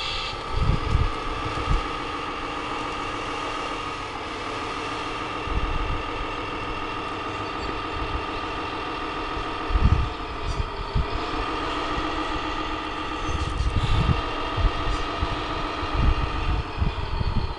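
Radio-controlled Peterbilt dump truck's tipping gear running with a steady mechanical hum as the end-dump trailer's bed rises to unload sand. The pitch shifts briefly partway through, and wind buffets the microphone in gusts.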